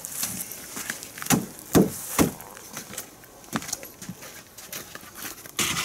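A few sharp wooden knocks and clunks from loose floor planks being stepped on and shifted. Near the end a power screwdriver starts up again.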